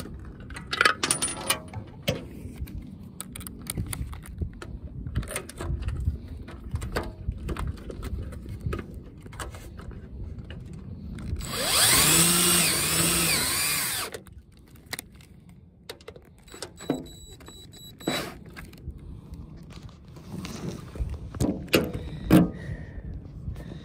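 Cordless drill running for about two and a half seconds near the middle, its motor whine rising and falling in pitch as it bores through a black plastic solar-panel bracket. Scattered clicks and knocks come from the brackets being handled before and after.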